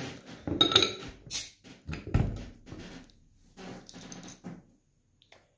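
A capped glass bottle of Topo Chico sparkling mineral water being opened with a bottle opener. There are metal clicks at the crown cap, then a short sharp hiss as the cap comes off. A heavy knock follows about two seconds in as the bottle is set down on the table, then a few softer clinks.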